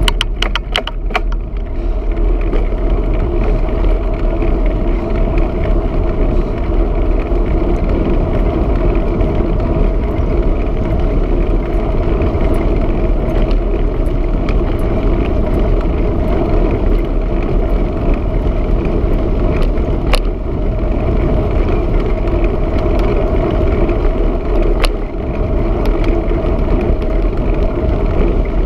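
Steady wind rush and rolling road noise on a camera microphone while riding a bicycle along a road. There is a quick flurry of sharp clicks in the first couple of seconds and two single clicks later on.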